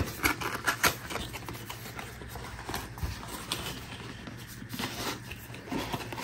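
Gloved hands handling a cardboard sunglasses box: a quick run of taps and scrapes in the first second, then scattered rubbing and sliding as the contents are pushed out of the box's sleeve.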